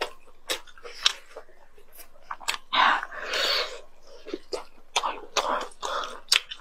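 Close-miked chewing and biting of grilled squid: wet mouth clicks and smacks, with a few longer, louder chewing bursts about three seconds in and again about five seconds in.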